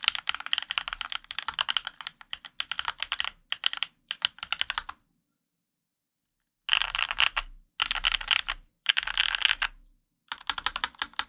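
Fast typing on a Dolphin 2021 custom mechanical keyboard with Gateron Yellow Pro linear switches, lubed with Krytox 205g0, on an aluminium plate. Dense runs of keystrokes stop for under two seconds about halfway through, then come back in four short bursts.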